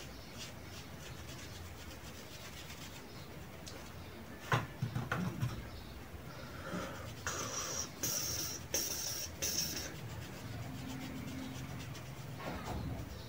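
Makeup brush rubbing setting powder onto a wig's lace: faint scratchy rubbing, a few knocks about four and a half seconds in, then three or four louder hissy strokes between about seven and ten seconds.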